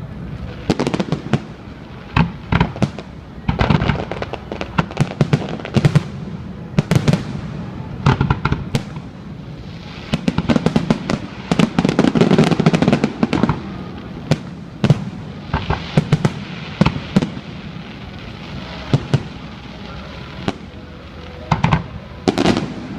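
Fireworks bursting overhead: an irregular run of sharp bangs and crackles, sometimes several a second, thickening into a dense rumbling barrage about halfway through.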